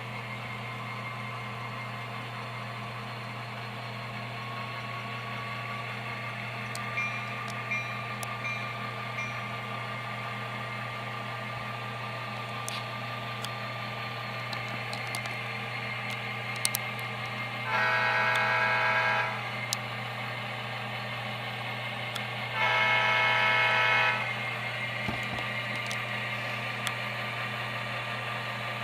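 Model diesel locomotives' digital sound decoders playing a diesel engine sound that runs steadily, with a tone rising a few seconds in and then holding. Two multi-note horn blasts of about a second and a half each sound past the middle, about five seconds apart.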